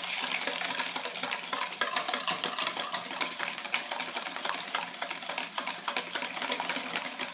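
Wire whisk rapidly beating eggs, oil, sugar and salt in a stainless steel bowl, the wires clicking and scraping steadily against the metal.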